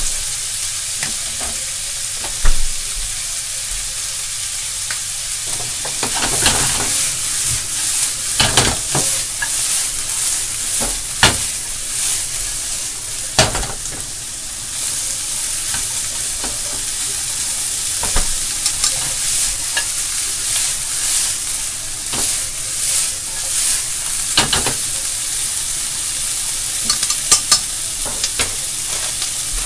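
Shredded cabbage and meat sizzling in a nonstick frying pan on a gas burner, with a steady high hiss broken every couple of seconds by the knocks and scrapes of the pan being stirred and shaken.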